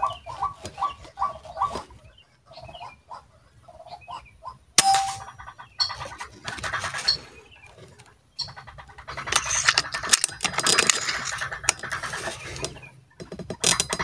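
A bird call repeated about three times a second. About five seconds in comes a single sharp air-rifle shot with a short metallic ring, followed by rustling and knocking noises.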